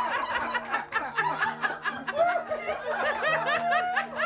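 Several people laughing and squealing with excitement during a surprise hug, in quick bursts all through, with background music of held low notes underneath.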